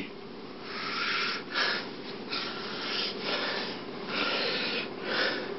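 A person breathing out in short, noisy puffs, about six in a row.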